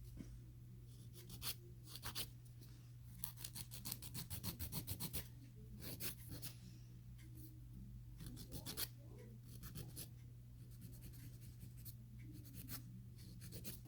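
A nail file rasping across a gel nail in short, quick back-and-forth strokes that come in several bursts, with a steady low hum underneath.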